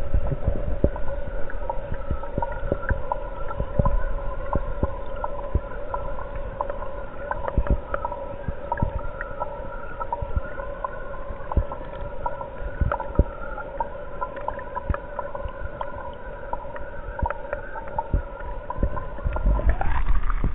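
Aquarium pump heard underwater through the tank water: a steady hum with a few held tones, broken by scattered clicks and knocks. Near the end the tones bend upward and the noise grows as the microphone comes up out of the water.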